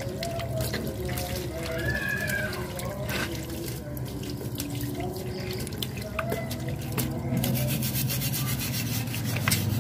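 Water running and splashing while oily motorcycle engine parts are scrubbed by hand, with repeated rubbing and scraping strokes.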